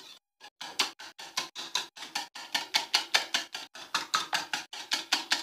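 Egg and ghee mixture being beaten by hand in a bowl into a thick paste: the utensil clicks against the bowl in a quick, even rhythm of about six strokes a second.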